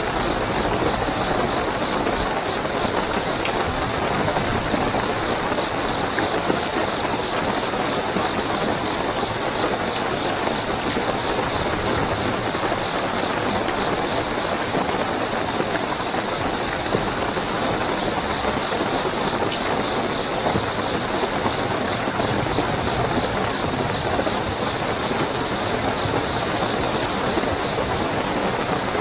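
Steady heavy rain with a continuous high-pitched trill of night crickets.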